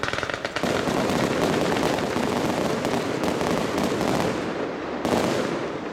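Fireworks display: rapid crackling that thickens into a dense, continuous crackle about half a second in, with another loud burst about five seconds in.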